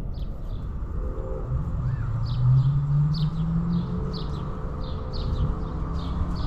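Short, high bird-like chirps repeating about twice a second, over a steady low hum.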